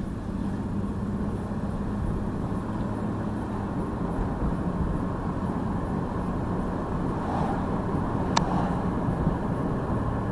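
Freshly swapped-in 3.7 V6 of a 2002 Jeep Liberty running on a test drive, heard as steady engine and road noise inside the cabin, with one brief sharp click about eight seconds in.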